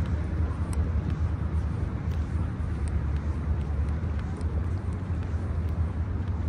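Steady outdoor street ambience with a low rumble of distant road traffic, and faint light ticks now and then.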